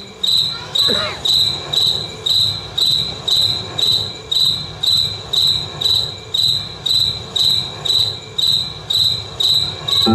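Cricket chirping in a steady, even rhythm, about two high-pitched chirps a second. A low murmur of voices runs underneath.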